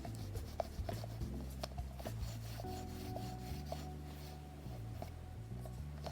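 A sticky lint roller rubbing over plush fabric, with short scratchy clicks, mostly in the first couple of seconds. Background music with held low notes plays throughout.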